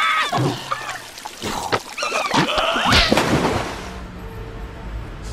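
Cartoon larva character's squealing, sliding vocal cries, broken by a few sharp knocks. Near the end the cries give way to a steady low rushing sound.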